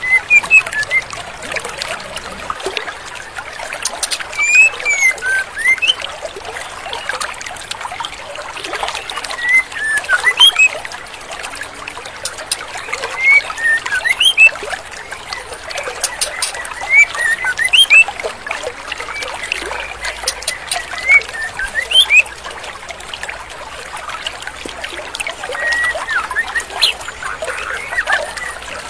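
Female white-rumped shama (murai batu) giving short, high, rising chirps in clusters every few seconds over the steady rush of a flowing stream.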